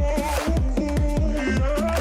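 Electronic background music with a steady beat of deep kick drums that drop in pitch, under sustained synth tones.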